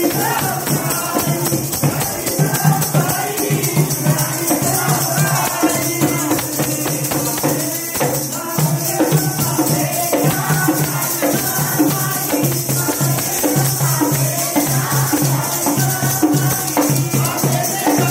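Sikh devotional hymn singing (kirtan), with voices carrying a melody over rhythmic percussion and a steady metallic jingling.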